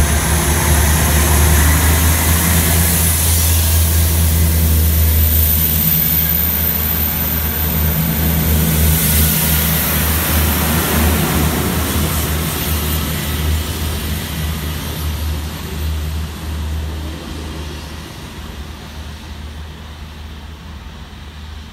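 Class 159 diesel multiple unit pulling out of the platform, its diesel engines running with a deep steady drone as the carriages roll past. The sound fades steadily over the last several seconds as the train draws away.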